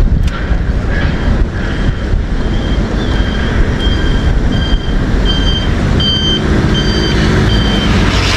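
A vehicle's reversing alarm beeping about twice a second over a steady low engine rumble. The beeps come in about two seconds in and grow louder.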